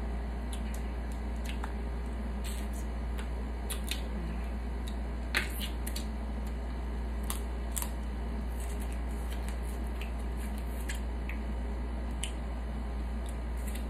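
Snow crab leg shells being cracked and picked apart by hand, with scattered short clicks and snaps, the sharpest about five seconds in, along with close-up chewing and mouth sounds.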